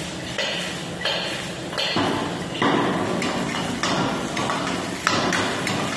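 Steel ladle knocking and scraping in a wok during stir-frying, in rhythmic strokes about twice a second at first, then denser from about two seconds in, over the food sizzling.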